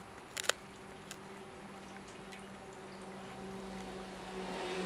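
A dog gnawing on a piece of wood, its teeth crunching and clicking on the wood in a few sharp cracks, the loudest about half a second in. A steady low hum rises underneath in the second half.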